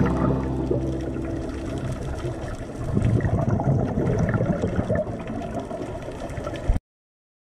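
Underwater audio picked up by a camera in its housing: a muffled low rumble with irregular gurgling of scuba divers' exhaled regulator bubbles. It cuts off suddenly near the end.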